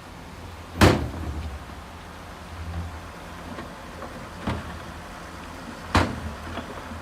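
Heavy construction machinery's diesel engine running with a low, steady rumble, with two loud sharp knocks, about a second in and near the end, and a lighter knock between them.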